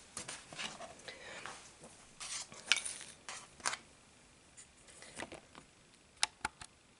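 Handling noises: scattered light clicks, knocks and rustling as craft materials such as cardboard, markers and pipe cleaners are moved and set down, with a few sharp clicks near the end.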